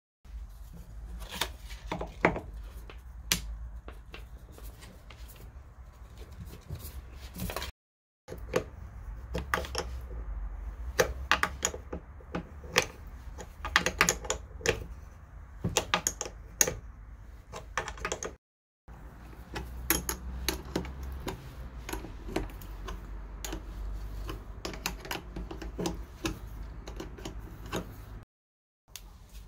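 Small open-end spanner clicking and scraping on the brass clamps and bolts of a car battery's terminals as they are fitted and tightened: a run of irregular light metallic clicks over a low rumble. The sound cuts out abruptly three times.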